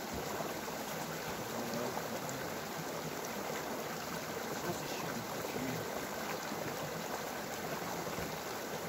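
Mountain stream flowing, a steady even wash of water noise.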